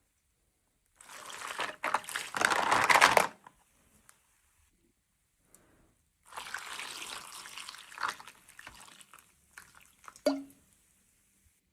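Water pouring or trickling in two short spells, the first louder, followed by a few small clicks and a sharp knock about ten seconds in.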